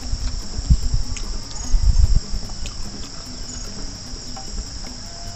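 A steady, high-pitched insect chorus, with a few dull low thumps in the first two seconds.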